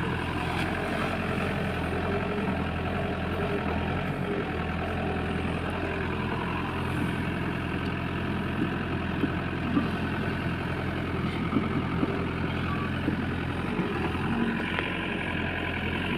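Heavy diesel engine running steadily, with several sharp knocks or clanks in the middle stretch.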